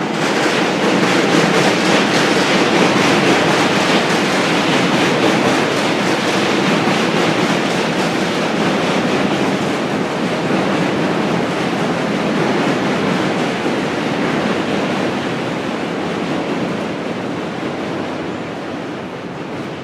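Loud rushing noise of a large vehicle passing close by, swelling up within the first second and slowly fading away over the following seconds.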